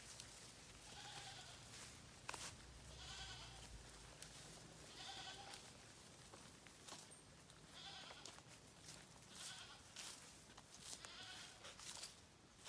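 Faint, short bleating calls from farm animals, about six of them spaced a second or two apart, with scattered light clicks in between.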